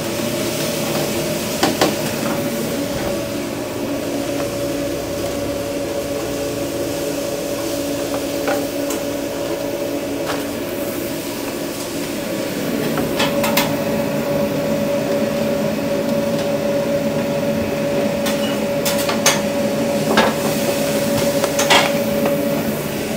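Metal cooking utensils knocking against pots and pans during food-truck cooking, with sharp knocks every few seconds over a steady machine hum.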